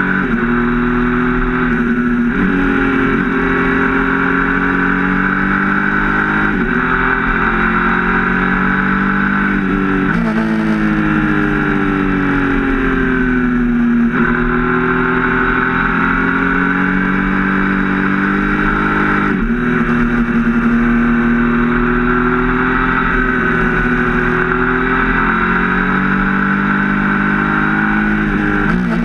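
A Triumph Speed Triple RS 1050's three-cylinder engine heard on the move under load. Its pitch rises and falls with the throttle, with several sudden jumps in pitch at gear changes.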